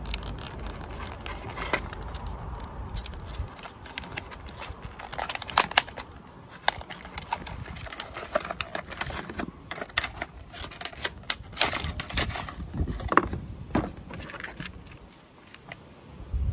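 Hands unpacking a small cardboard box and a clear plastic cassette-adapter case: irregular clicks, crackles and rustles of cardboard and plastic packaging. A low rumble runs under the first few seconds.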